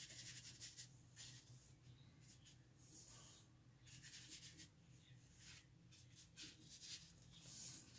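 Faint, short swishes of a paintbrush stroking and dabbing dark green paint onto textured mixed-media paper, several strokes at irregular intervals, over a low steady hum.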